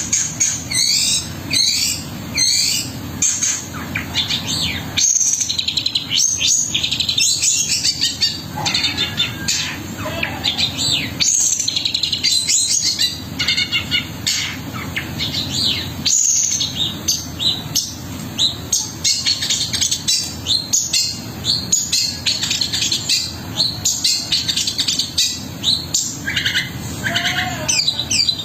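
Long-tailed shrike (cendet) singing continuously: a fast, varied run of sharp chirps, short sweeping notes and rapid rolling trills with harsh, scratchy notes mixed in. A steady low hum runs underneath.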